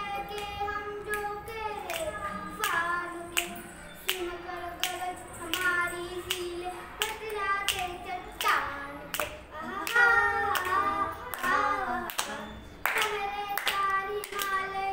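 A boy singing a Hindi patriotic song without instruments, in long held notes that slide between pitches. Steady hand claps keep time, about two a second.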